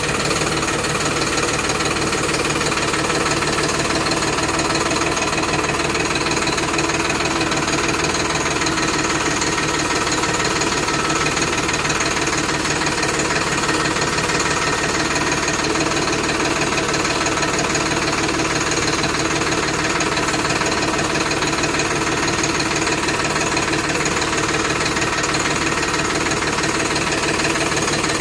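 Farmtrac 60 tractor's three-cylinder diesel engine running steadily as the tractor drives along, a loud, rapid, even clatter heard from the driver's seat.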